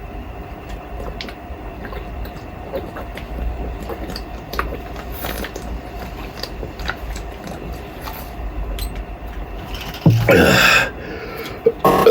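A person gulping down carbonated water from a bottle, with repeated small wet swallowing clicks. About ten seconds in, a loud voiced gasp for breath.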